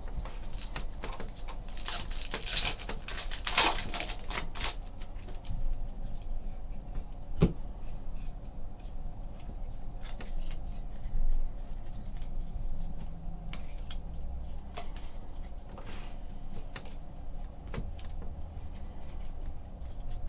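Trading cards and packs being handled: rustling and sliding, with a cluster of louder rustles a few seconds in and scattered taps and clicks, one sharp click near the middle.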